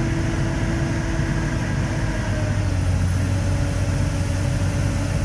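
Komatsu PC220-7 excavator's diesel engine running at full throttle. About two and a half seconds in, its pitch drops slightly and a deeper hum comes in as the engine takes the load of the hydraulic pump pushed to relief, the pump pressure climbing to about 347 kg/cm².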